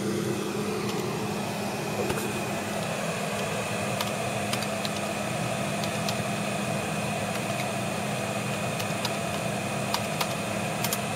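Steady room hum and hiss, like a fan running, with a constant high-pitched whine and a few faint clicks.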